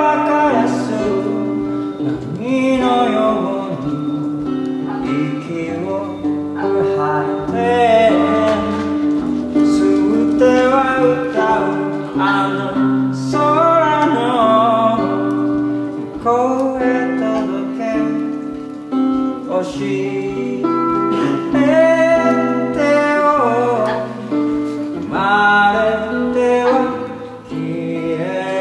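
A man singing over his own hollow-body archtop guitar accompaniment.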